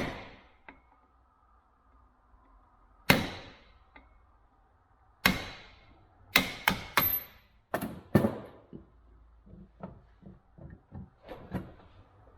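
Hammer blows driving a pin out of a Record No. 6 cast-iron bench vise: a few single hard strikes spaced seconds apart, then a quicker run of blows, fading to lighter taps near the end.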